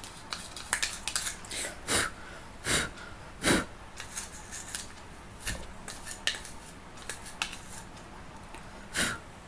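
Toothbrush scrubbing dirt out of the opened plastic housing of an aquarium air pump: irregular scratchy strokes and clicks, with a few louder knocks of the brush against the plastic.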